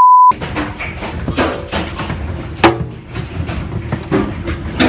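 A short, loud, steady beep of a censor bleep at the very start, then hailstones pelting hard surfaces in an irregular clatter, with a louder single strike about two and a half seconds in and another near the end.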